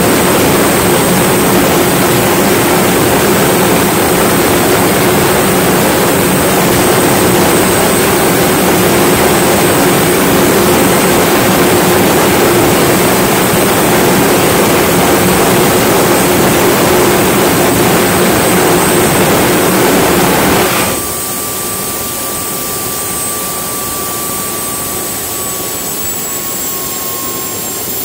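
Homemade gas-turbine jet engine on a mobility scooter running at high power with its afterburner lit: a loud, steady roar with a high whine over it. About three-quarters of the way through, the roar drops away suddenly, leaving the turbine's whine, which then falls slowly in pitch.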